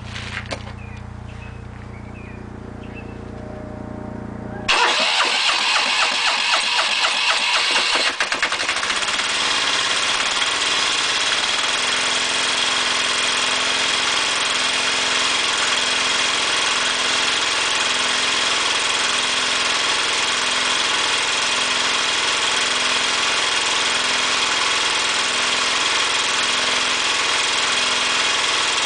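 Kubota EA300 single-cylinder water-cooled diesel started on its electric starter: about five seconds in it cranks with a rhythmic pulsing for some three seconds, then catches and settles into a steady run.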